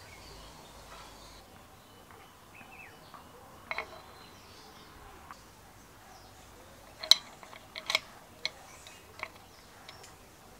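Small steel drill parts clicking and tapping against the cast housing of a Leytool hand drill as they are fitted by hand. There are a few short sharp clicks, the loudest about seven seconds in, with several more over the next two seconds.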